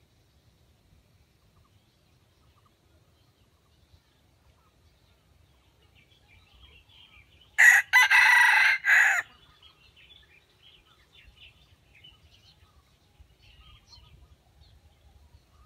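Red junglefowl rooster crowing once: a short, clipped crow of about a second and a half, broken into three parts, about eight seconds in.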